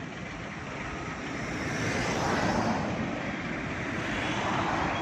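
Road vehicle noise swelling about two seconds in and staying loud, like a vehicle passing close by on the road.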